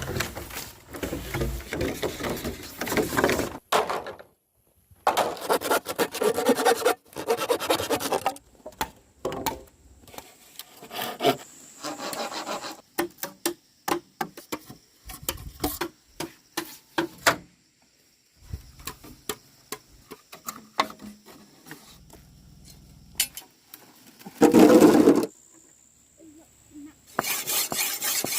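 Scraping and rubbing sounds in short stretches, broken by many quick clicks and knocks, with one loud burst near the end.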